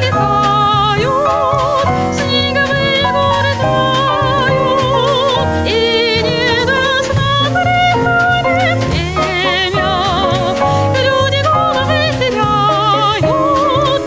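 Jazz quartet playing live: a woman sings long, wavering vibrato notes over grand piano, double bass and drum kit.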